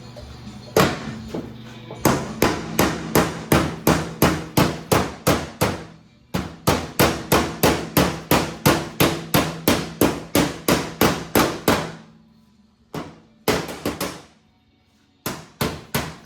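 A big hammer striking the heat-softened edge of a sheet-steel firewall against a dolly held behind it, flattening the metal: fast runs of sharp blows, about three to four a second, broken by a couple of short pauses.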